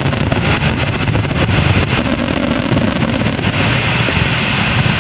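Fireworks going off: dense crackling and popping over a steady low rumble, the crackles thinning out about three and a half seconds in.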